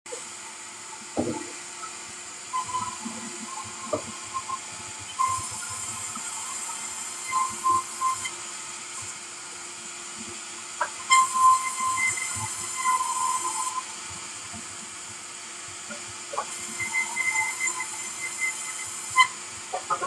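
A sawmill saw running with a steady hum while logs are fed through it. Three times it makes a louder, harsher cutting noise lasting a few seconds as the blade goes through the wood. A few short knocks of timber being handled fall between the cuts.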